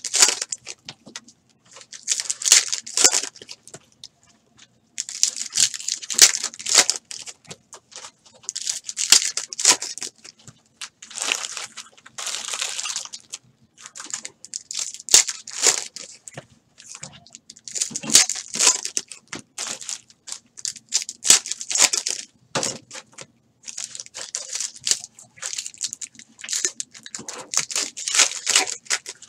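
Trading-card pack wrappers being torn open and crinkled by hand, in a run of separate tearing, crinkling bursts every second or two.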